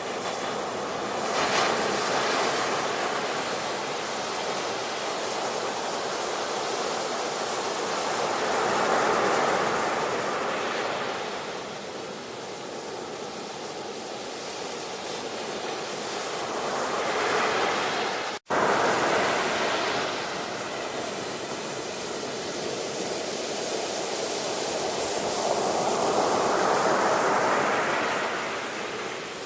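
Ocean surf: waves washing in and drawing back, swelling and falling in slow surges about every eight seconds. The sound cuts out for an instant about two-thirds of the way through.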